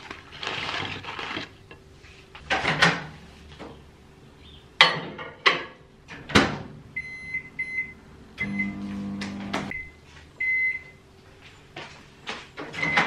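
Fries tipped out of a paper box onto a plate with a short rustle, then several knocks as a microwave oven's door is opened and shut. A run of short high keypad beeps follows as the microwave is set, with a brief low hum in the middle of them.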